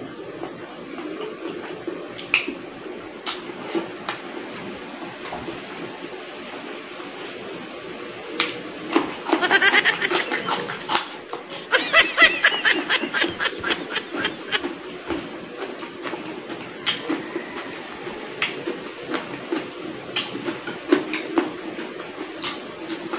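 Close-up eating sounds of a man eating rice and fried fish by hand: chewing, lip smacks and small wet clicks. Partway through, two loud bursts of rapid, high-pitched chattering, each lasting about two seconds, stand out from the eating sounds.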